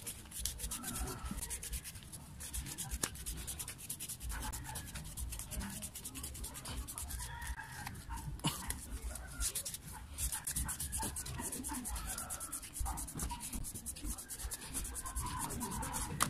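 Irregular rubbing and scraping as an angle grinder's armature is handled and its copper commutator is rubbed clean, with scattered light clicks.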